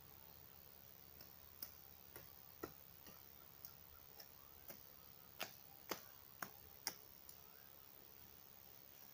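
A series of short, sharp taps or clicks, about two a second and irregular, loudest a little past the middle, over a faint steady background.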